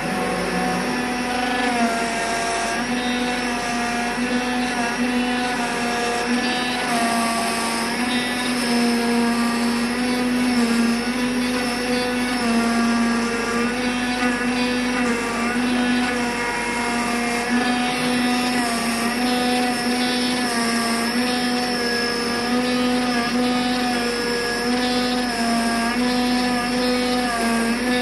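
Digital flatbed cutting machine running while it cuts corrugated cardboard. It makes a steady motor whine whose pitch steps up and down every second or so as the cutting head moves from one cut to the next.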